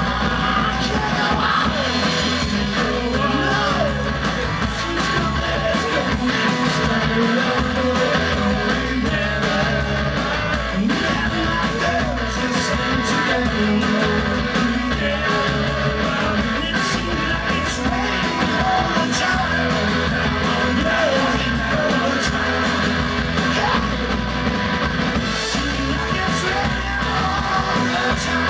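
Live rock band playing a song at full volume: strummed acoustic guitar, a second guitar and a drum kit with cymbals, with a lead vocalist singing.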